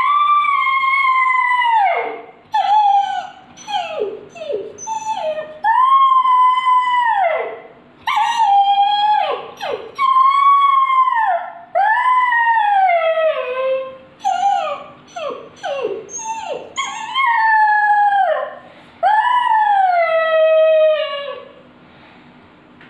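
A puppy howling over and over. Long howls hold their pitch and then fall away at the end, with shorter falling yelps and whines between them. The uploader puts the howling down to hunger.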